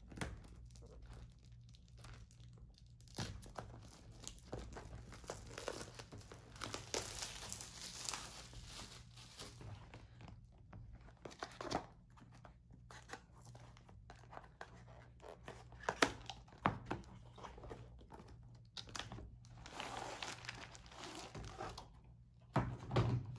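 Packaging being handled and torn open: a cardboard diamond painting kit box opened and its paper-wrapped contents pulled out, with crinkling and tearing in irregular bursts. A few sharp knocks come through it, the loudest about two-thirds of the way in and near the end.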